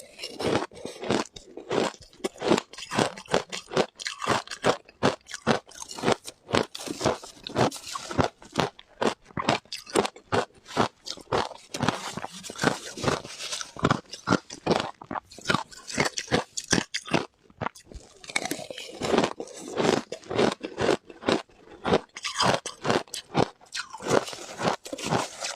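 Shaved ice with milk powder being bitten and chewed, a rapid run of irregular crunches, close-miked.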